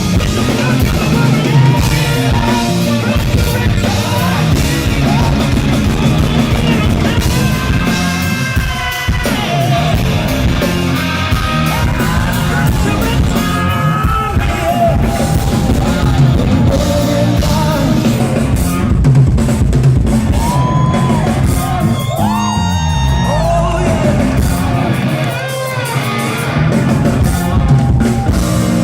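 Live rock band playing loud in a large hall: drums, electric guitar and a male lead singer's long sung lines.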